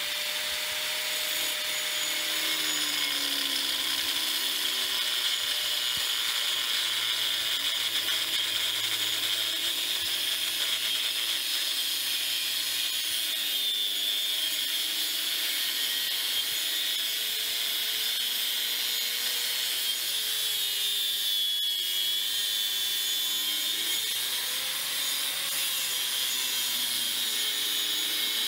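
Porter Cable PC750AG 4.5-inch angle grinder with an abrasive cutoff wheel cutting through 1/8-inch-wall steel square tubing: a steady, high-pitched grinding whine, its motor pitch dipping now and then as the wheel is pressed into the cut.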